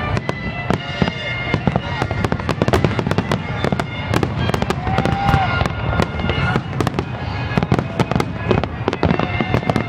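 Fireworks going off in quick, irregular succession: many sharp bangs and crackles overlapping one another.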